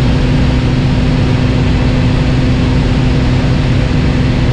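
Single-engine light aircraft's propeller engine heard from inside the cabin in flight: a loud, steady drone with a low hum over an even rush of noise.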